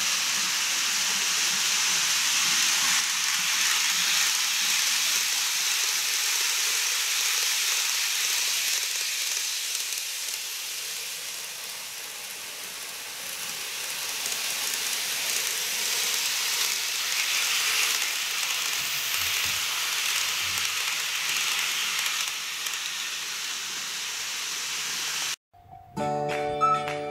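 N-gauge model electric train running on the layout's viaduct track: a steady hissing whir of motor and wheels on rail, easing off around the middle and building again as the train comes nearer. Near the end the sound cuts off abruptly and music starts.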